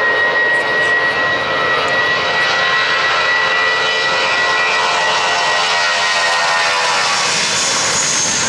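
Jet airliner's turbofan engines running with a loud, steady high whine over a rushing roar. Near the end the whine fades and its pitch drops slightly.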